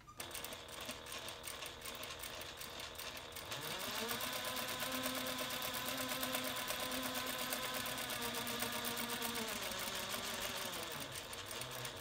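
Juki 8700 industrial lockstitch sewing machine top-stitching a strap. It runs at a slow, even stitch, speeds up about four seconds in to a steady faster run, then slows and stops near the end.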